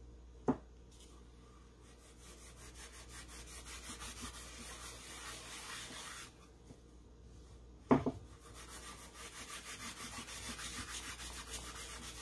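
Cloth rubbing wax onto a painted wooden pumpkin in quick, even back-and-forth strokes. There is a sharp knock about half a second in and a louder knock about eight seconds in.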